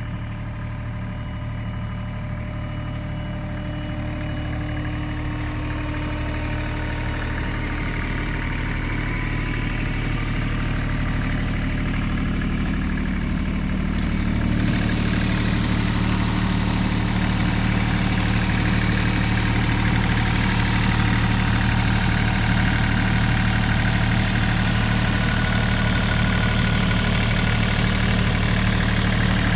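IHI mini excavator's diesel engine running steadily, growing gradually louder over the first half. About halfway through, a hiss abruptly joins it.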